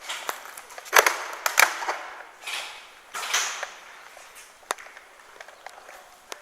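A few sharp cracks and clicks, the loudest about a second in with a second one just after, between swells of rustling noise.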